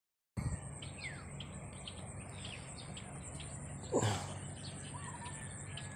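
Birds chirping over and over in short high notes, with a few falling whistled calls, over a steady high whine. A brief, louder falling sound cuts in about four seconds in.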